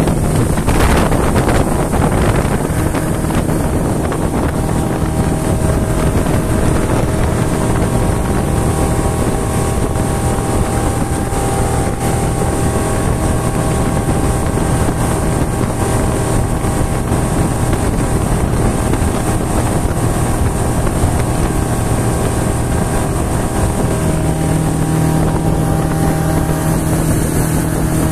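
Motorboat engine running steadily at speed: a constant-pitched drone that gets a little stronger near the end.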